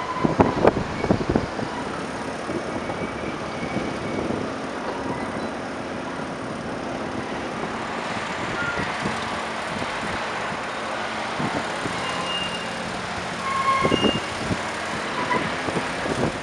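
Volvo crawler excavator's diesel engine running steadily as it works, with scattered clanks and knocks, clustered about a second in and again near the end.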